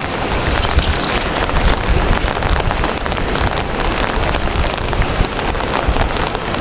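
Steady heavy rain falling on city streets: a dense hiss of rain with many small drop ticks and a low rumble underneath.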